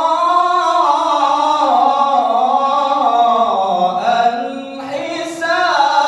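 A male qari reciting the Quran in melodic tilawah style into a microphone, holding long ornamented notes. The pitch sinks to a low point about four seconds in and climbs back up near the end.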